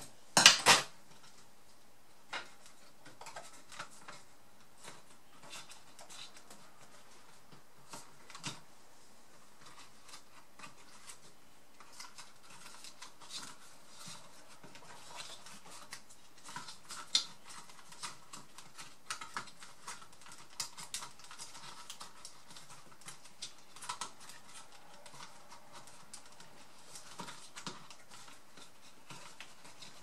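Small clinks, taps and rustles as hands handle parts and tools inside an opened Toshiba Satellite Pro A300 laptop. A sharp clatter comes about half a second in, then scattered light clicks follow.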